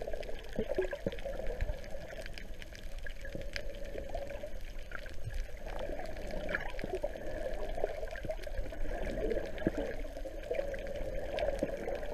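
Muffled underwater sound picked up by a GoPro in its waterproof housing: steady water sloshing and gurgling, with scattered small clicks throughout.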